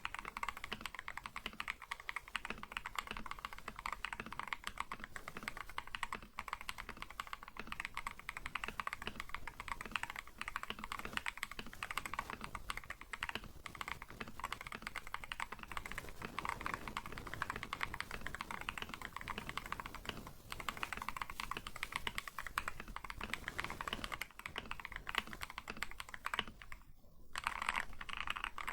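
Typing test on an Akko 5075 gasket-mounted mechanical keyboard with lubed Akko Cream Yellow V3 linear switches and thick PBT XDA keycaps: fast, continuous keystrokes, with a brief pause near the end.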